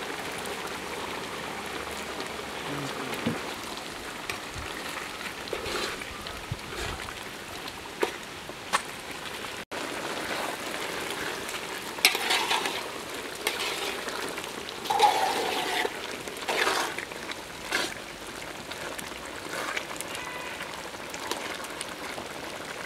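A pot of aviyal, a thick Kerala vegetable and coconut curry, bubbling with a steady hiss in an aluminium pot over a wood fire, with a few small clicks. After a sudden cut, a metal spoon stirs the curry and scrapes against the pot in several strokes.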